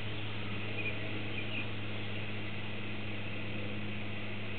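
Steady low hum of outdoor background with a couple of faint bird chirps a second or so in.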